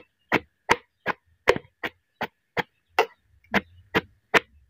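A steel chopping tool striking down through chopped vegetable pieces against a steel bowl: a sharp chop with a short metallic ring, repeated in an even rhythm a little under three times a second, about a dozen strokes.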